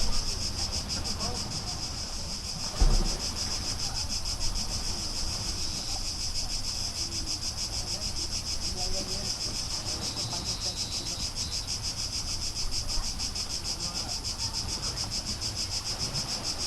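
A chorus of insects buzzing steadily, a high, rapidly pulsing trill, over a low rumble, with a single low thump about three seconds in.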